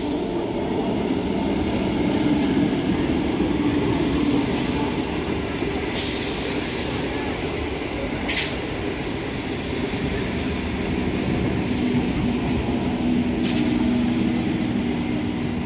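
Electric suburban local train (EMU) running along the station platform: steady rumble of wheels on the rails with a low hum, and a few sharp clanks as the carriages pass.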